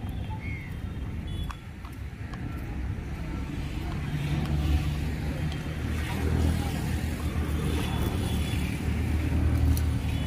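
City street traffic with a motor vehicle's engine running close by. Its low rumble grows louder about three seconds in and stays loud.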